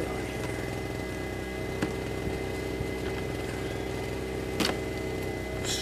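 Steady motor drone with several constant tones, like an engine idling, running throughout. Over it, a light click about two seconds in and a sharper click and rustle near the end as a hose fitting is worked onto the water heater's plumbing.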